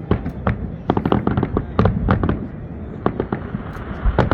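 Fireworks going off in quick, irregular succession: many sharp bangs and cracks, several a second, over a continuous low rumble of further explosions.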